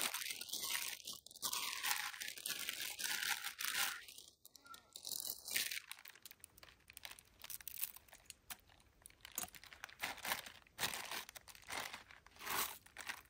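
Plastic wrapper of a Maggi instant-noodle packet crinkling and tearing, and the dry noodle block crunching as it is broken into the pot, in irregular crackly snaps.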